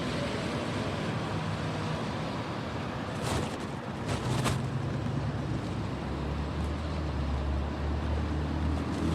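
A vehicle engine running under a steady rush of noise. Its low hum grows stronger in the second half, and a couple of brief knocks come around the middle.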